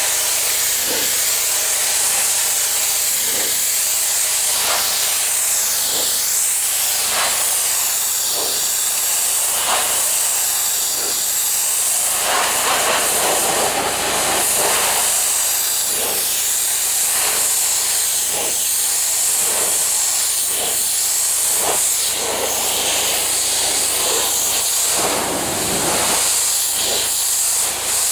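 Pressure washer spraying a pool deck: a loud, steady hiss of high-pressure water, with faint swells about once a second.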